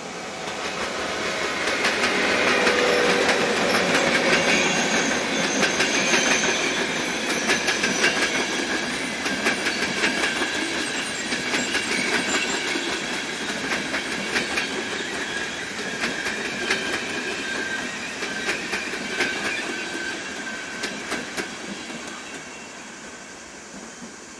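InterCity train headed by two Siemens HellasSprinter class 120 electric locomotives, with UIC-Z1 coaches, passing by. Its wheels clatter over the rail joints in quick clicks. The sound swells over the first few seconds as the locomotives go past, then slowly fades as the coaches roll away.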